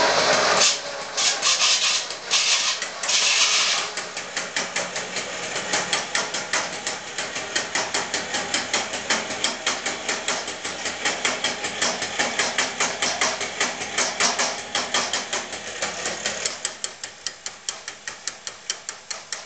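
A small mower engine running and cutting out just under a second in. A few short bursts of hissing follow, then a long run of rapid, evenly spaced mechanical clicks that gets quieter near the end.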